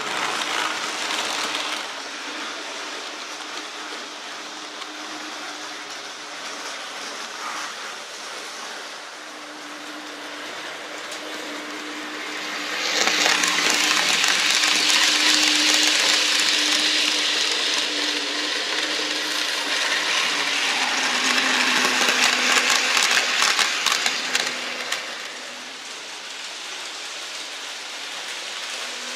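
N-scale model trains running on the track: a steady small-motor hum with rolling wheel noise. About halfway through, a train passes close by and the sound grows much louder for about twelve seconds, with a flurry of clicks from the wheels over the rails before it fades.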